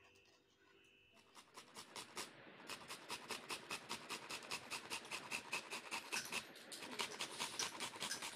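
Raw mango being grated on a stainless-steel box grater: rapid, even rasping strokes, about four a second, starting about a second in.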